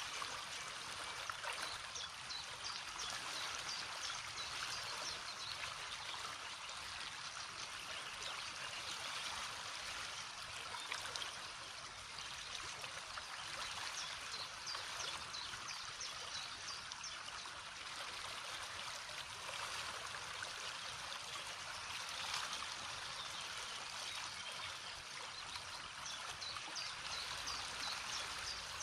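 A river's water rushing and splashing over rocks, steady throughout, with many small splashes and trickles on top.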